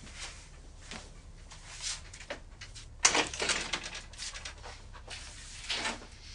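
Footsteps and scattered clicks, then a door handle and door opening with a sudden clatter about three seconds in; a door bangs shut at the very end.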